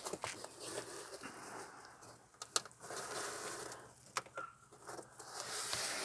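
Rustling, crinkling and light clicks of a hook-and-loop (Velcro) strip being handled and pressed onto its mating piece, in irregular bursts.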